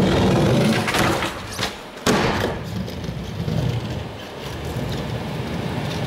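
Skateboard wheels rolling into a wooden ledge, a brief scrape along its metal edge, then the board landing with a sharp, loud clack just after two seconds in, followed by quieter rolling.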